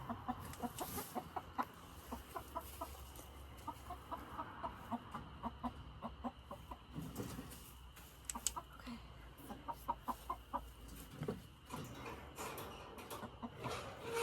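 Hens clucking in long runs of short, quick clucks, with a few scattered knocks and rustles.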